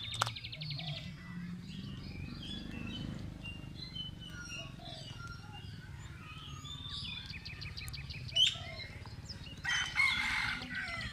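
Several birds chirping, with rapid rattling trills near the start and about seven seconds in, a sharp click a little after eight seconds, and a loud harsh call about ten seconds in.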